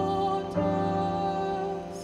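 A high school choir performing a slow holiday song: held chords, moving to a new chord about half a second in and growing softer near the end.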